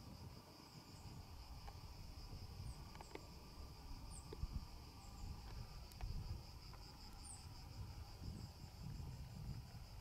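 Insects chirring in a steady high drone with a slight pulse, over a low rumble of wind on the microphone. A few short high chirps come and go.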